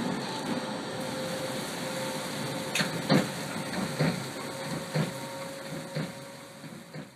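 Helsinki metro train running on open track, heard from inside the front car: steady rumble with a faint hum, and a run of wheel knocks over rail joints and points, the loudest about three seconds in. The sound fades out at the very end.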